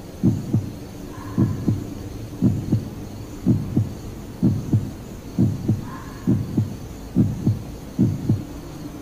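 Heartbeat sound effect: paired low lub-dub thumps about once a second, over a low steady hum.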